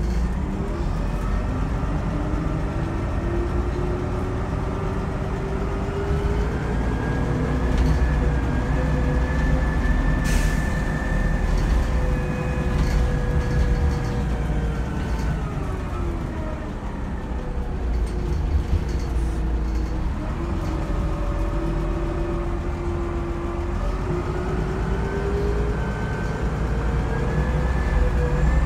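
Scania L94UB bus heard from inside the cabin, its ZF automatic gearbox whining loudly over the low drone of the diesel engine. The whine rises in pitch as the bus gathers speed, holds steady, then falls as it slows down. It stays low for a few seconds and rises again near the end as the bus accelerates once more.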